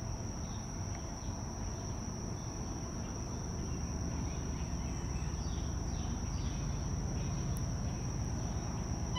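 Insects droning in the trackside foliage: a steady, unbroken high-pitched buzz, over a low rumble that grows slightly louder. A few faint chirps come through around the middle.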